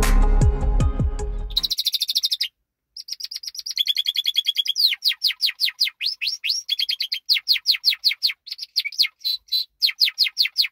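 Background electronic music cuts off about two seconds in, and a Yorkshire canary sings: a long song of rapid trills and quick, high repeated notes, many of them sweeping downward.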